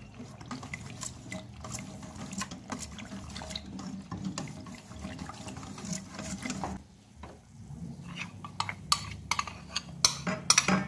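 A spoon stirring cornstarch into orange juice and milk in a container: liquid sloshing with light, irregular clinks against the sides, which come faster near the end.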